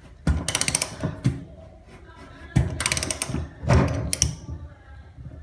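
Ratchet turning a tub drain removal tool that is seated in an old, corroded bathtub drain, to unscrew it. There are two spells of rapid ratchet clicking, about half a second in and again past the middle.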